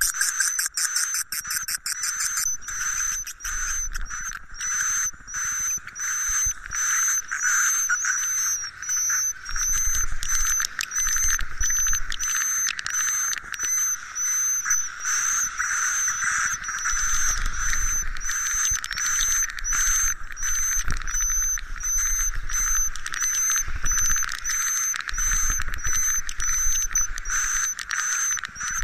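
Edible-nest swiftlet roosting-lure sound ('suara inap'): dense, continuous twittering chatter of swiftlets, with short high chirps repeating about twice a second and rapid clicking in the first couple of seconds. It is the kind of track played from speakers in a swiftlet house to draw the birds in to roost.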